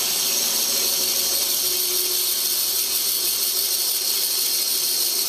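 14-inch Delta bandsaw running with a thin 1/16-inch blade, cutting slowly through a thick block of laminated cherry: a steady, even hiss.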